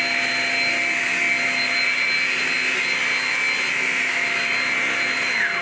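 Shark Rocket self-cleaning stick vacuum running steadily with a high motor whine. Near the end, one of its tones slides down in pitch.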